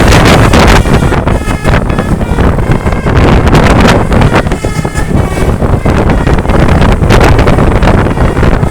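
Heavy wind buffeting the microphone over a moving tour bus, with short pitched tones of the bus's Basuri telolet horn cutting in and out.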